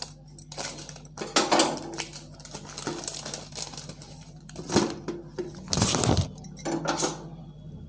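Butter paper rustling and crinkling as a slab of set chocolate burfi is lifted out and peeled from it, with short knocks of handling. The loudest, heaviest knock comes about six seconds in, as the slab is set onto a plastic plate.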